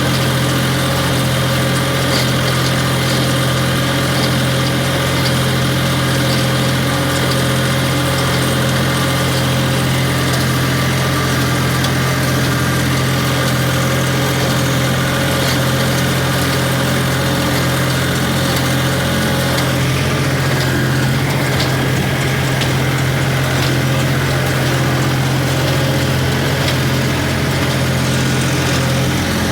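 Case 385 tractor engine running steadily at a constant speed while pulling a John Deere 14T hay baler, with faint light ticking from the working machinery.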